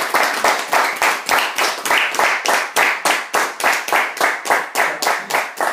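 Hand clapping in a steady quick rhythm, about four to five claps a second.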